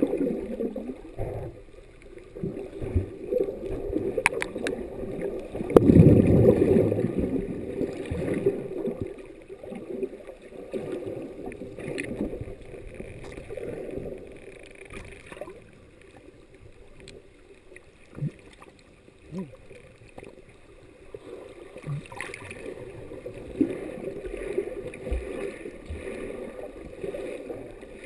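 Muffled water sloshing and gurgling picked up by a camera held underwater, with a stronger surge about six seconds in and a few scattered clicks.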